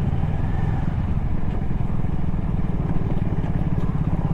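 Motorcycle engine running steadily under way, with an even low pulsing.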